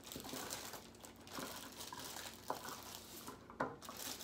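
Clear plastic bag crinkling as hands pull a new air-pump diaphragm assembly out of its repair-kit packaging, with a couple of sharper clicks about two and a half and three and a half seconds in.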